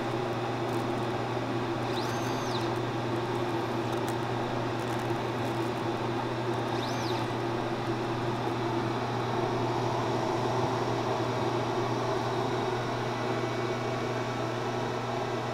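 Dremel Digilab LC40 laser cutter and its booster fan running with a steady hum and whir. Two brief high whines sound about two and seven seconds in.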